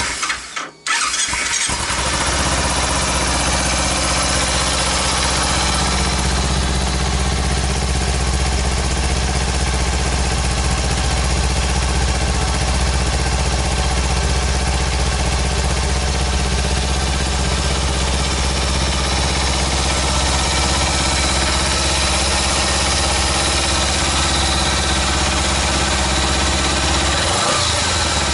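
Exhaust of a Kawasaki Ninja 250's parallel-twin engine through its stock muffler, settling within the first second after starting and then idling steadily with no revving.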